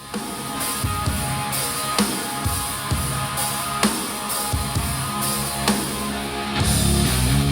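Rock music with a steady drum beat about once a second and guitar, played back through Bose desktop speakers as a sound demo. It fades in at the start and gets fuller and louder near the end.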